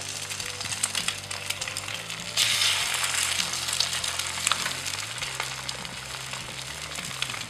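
Dog licking and biting an ice cream held to its mouth: continuous wet, crackly smacking with many small clicks, louder for about a second a little past two seconds in.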